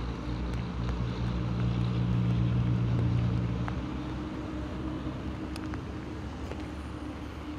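An engine hum that swells to a peak about three seconds in and then fades away, over a faint hiss of light rain on the water.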